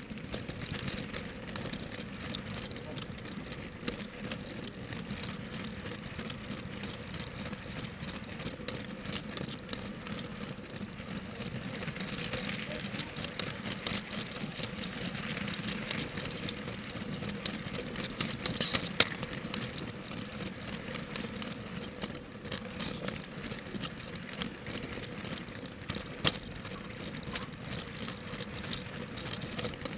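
Plastic LEGO train running along plastic LEGO track, its wheels rattling and clicking over the rails and joints with a faint steady hum from the train motor, heard close up from on board. Two sharper clacks stand out, one a little past the middle and one near the end.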